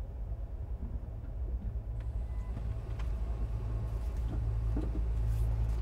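A low, steady rumble that grows gradually louder, with a few faint clicks.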